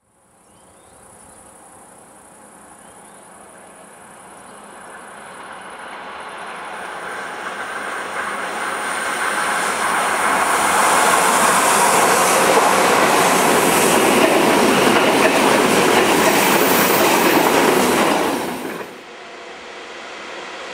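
Electric locomotive-hauled passenger train approaching and passing on a curve, its rolling noise building steadily over about ten seconds to a loud rush of wheels on rail, with clickety-clack and high wheel squeal. Near the end the sound drops abruptly to a quieter, rising rumble of another train coming out of a tunnel.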